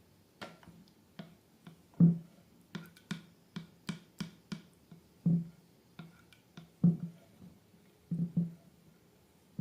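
Slime being worked by hand, giving irregular sticky clicks and pops, roughly two a second. The loudest come about two seconds in and near seven seconds.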